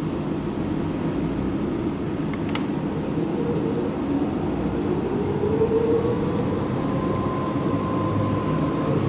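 City bus running, with a whine that rises in pitch from about four seconds in as it picks up speed, and a single sharp click a little before.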